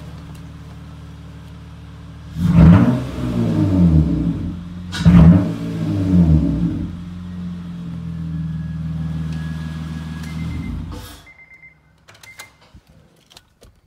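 2008 Acura TL V6 with a resonator-deleted cat-back exhaust and a cold air intake idling, blipped twice so the revs jump and fall back, then settling and shut off about 11 seconds in. A few clicks follow.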